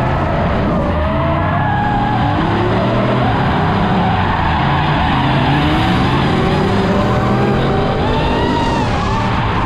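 Carbureted 400 cubic inch small-block Chevy V8 of a drifting third-gen Camaro, revving up and down under load as the rear tyres skid and squeal.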